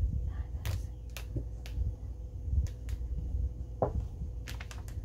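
Pen writing on the label of a sterilization pouch: faint scratching strokes and scattered light clicks and taps, irregular in timing.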